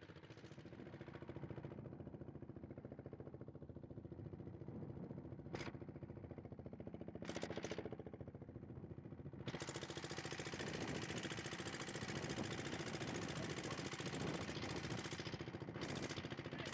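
Boat engine running steadily with a fast, even beat. It gets louder and fuller about ten seconds in.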